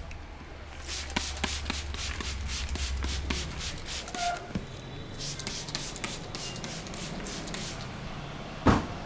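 Hands patting and tapping on a head during a head massage, about five quick strikes a second in two runs with rubbing between them. One louder thump comes near the end.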